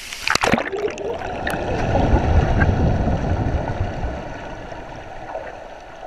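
Splashing as a waterproof action camera goes under the water of a waterfall pool, then the muffled underwater rush of the falling water, dull and low with the highs cut off. It swells in the middle and fades toward the end.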